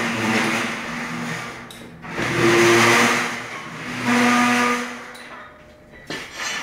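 Short raised men's voices calling out, two or three calls each under a second long, over a loud rushing noise.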